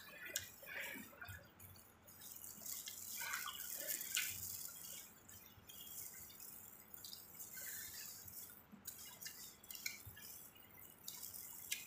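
Wet eating sounds of people eating saucy seafood by hand: scattered soft smacks, slurps and clicks.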